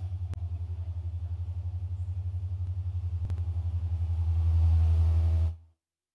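A low, steady droning hum with a fast even flutter, growing louder near the end and then cutting off suddenly about five and a half seconds in.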